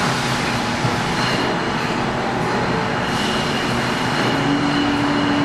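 Beer bottling line machinery running: a steady mechanical din with a few faint steady tones in it, and a low hum that joins about four seconds in.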